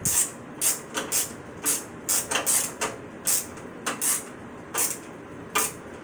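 Steel screws being tightened into the plastic frame of a 120 mm PC case fan: a run of short, sharp scraping sounds, about two a second, unevenly spaced.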